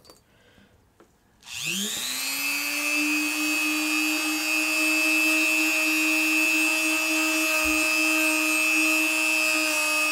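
Dremel rotary tool with a cotton buffing wheel starting up about a second and a half in, its whine rising in pitch and then holding steady as the wheel buffs wax polish on a leather shoe toe.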